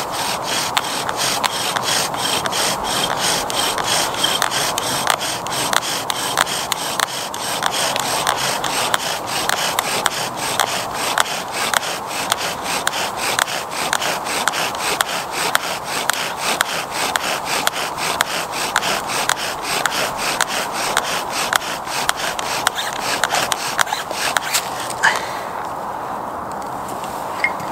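Bow drill in use: a wooden spindle driven back and forth by a bow, grinding into a wooden hearth board in a steady rubbing rhythm, hot enough to smoke as it builds a coal of char dust. The strokes stop about 25 seconds in.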